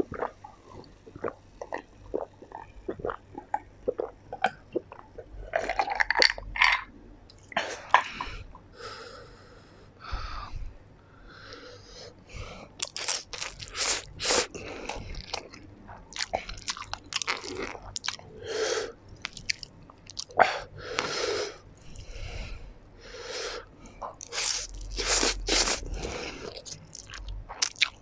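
Close-miked chewing and slurping of spicy black instant noodles: wet mouth noises with a louder slurp every few seconds. The first few seconds hold only soft gulps and clicks as he drinks from a glass.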